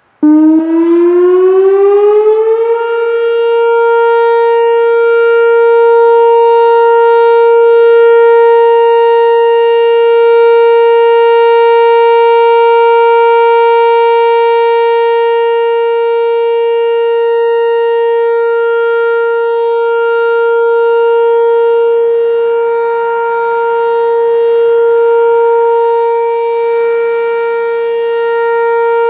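Whelen WPS-4004 electronic outdoor warning siren sounding its steady alert tone. It starts abruptly, rises in pitch over about two and a half seconds, then holds one steady tone that swells and fades slightly in loudness.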